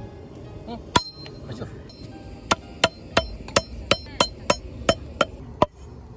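Cleaver chopping raw chicken on a wooden stump chopping block: one strike, then a steady run of about ten chops at roughly three a second.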